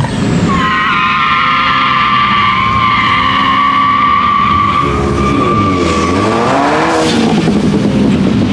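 A car's tires squealing in one long, steady, high-pitched screech as it spins in a parking lot. Its engine revs up and down over the last few seconds.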